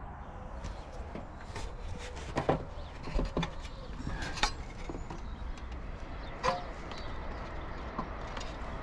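Scattered clicks and knocks of hands and tools working loose a motorhome TV aerial amplifier unit, unscrewing and sliding it off its mount, over a low steady hum.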